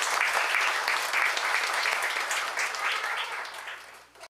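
A crowd applauding: dense, irregular hand-clapping that fades over the last second and then cuts off abruptly.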